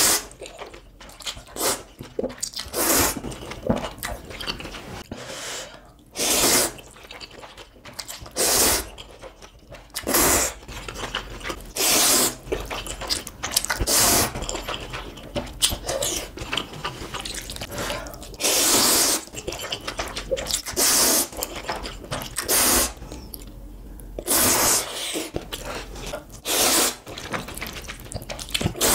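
A person slurping ramen noodles in spicy broth: loud, wet slurps, each under a second, repeated every one to three seconds, with quieter eating sounds between.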